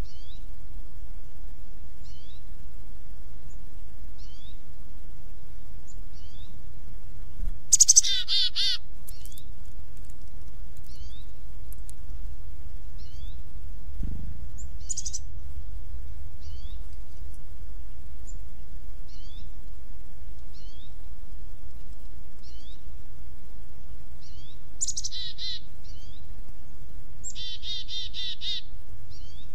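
Wild songbirds calling: a short, high, down-slurred chirp repeated about once a second, broken a few times by louder bursts of rapid chattering notes. A steady low rumble runs underneath.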